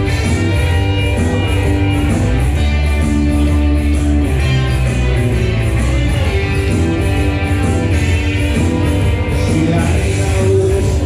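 Live glam rock band playing: electric bass and keyboards over a steady beat, loud and continuous.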